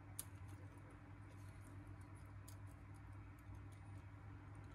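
Near silence: a steady low hum with a few faint, light clicks of metal tweezers handling small phone parts.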